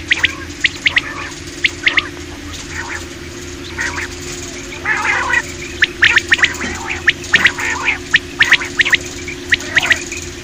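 Common quail calling: repeated groups of short, sharp, high-pitched notes in quick bursts, with a rougher, noisier call about five seconds in. A steady low hum runs underneath.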